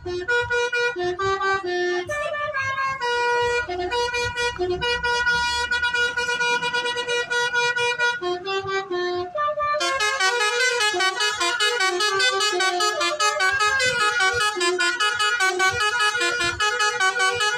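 Basuri telolet multi-tone bus horn playing a melody, holding each note and then stepping to the next. From about ten seconds in the tune turns faster and busier. A low rumble sits under the notes in the first half.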